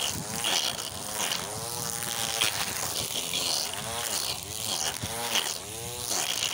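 Small electric string trimmer, its motor whining as the line cuts grass, the pitch dipping and recovering over and over as the line bites into the growth.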